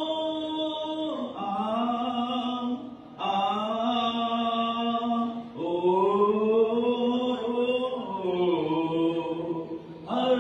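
A man singing a Hindi song unaccompanied into a microphone, holding long drawn-out notes that slide in pitch, with short breaths between phrases.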